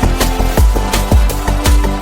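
Upbeat electronic background music with a steady kick-drum beat and held synth notes.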